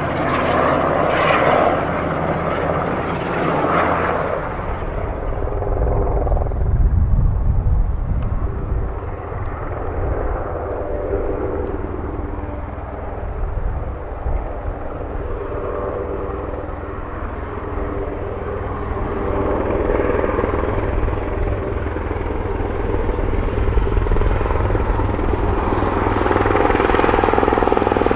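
Eurocopter AS532 Cougar military helicopter flying overhead with a water bucket slung beneath it: a continuous rotor and turbine sound over a low rumble that swells and fades slightly, getting a little louder near the end.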